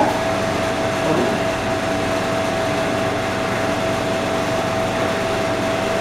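Commercial reach-in refrigerator's compressor and condenser fan running, a steady hum with a constant whine, the sign that the fridge is working again after its repair.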